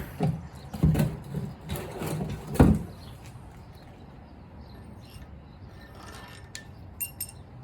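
Metal knocks and clanks from handling tools and engine parts, the loudest about two and a half seconds in, followed by a few faint clicks.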